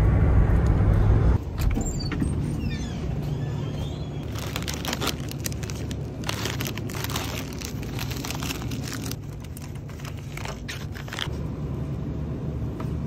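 Road and engine rumble inside a pickup truck's cab while driving, which stops abruptly about a second and a half in. After that comes a lower background hum with a run of rustling and crinkling from packages being handled.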